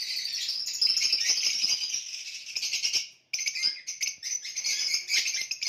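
Many small aviary birds chirping and chattering together in a dense, continuous din. It breaks off for a moment about three seconds in, then resumes.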